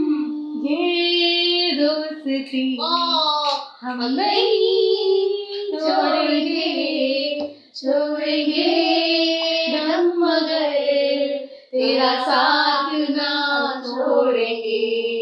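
Women's voices singing a slow Urdu love song together, holding long notes, with short breaks between the lines.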